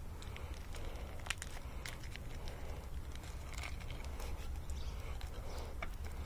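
Light clicks and rustling from the new condenser fan motor's lead wires being handled and pushed into a plastic wire sleeve, over a low steady background rumble.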